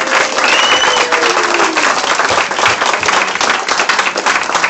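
An audience clapping steadily, a loud dense patter of many hands, with a voice calling out in the first couple of seconds.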